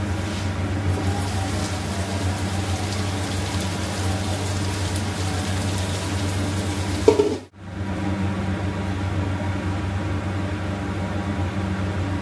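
Steady machine hum with a faint hiss over it; a short knock about seven seconds in, then the sound drops out for a moment and resumes unchanged.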